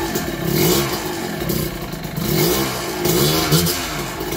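Suzuki TS125's single-cylinder two-stroke engine being revved in repeated throttle blips, its pitch rising and falling with each one.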